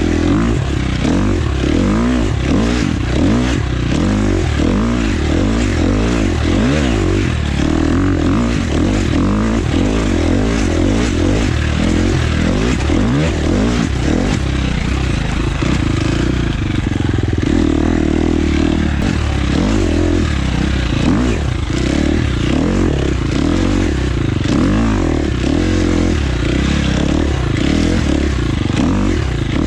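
Husqvarna FX 350 four-stroke single-cylinder dirt bike engine ridden hard through sand whoops, revving up and falling back over and over as the throttle is worked.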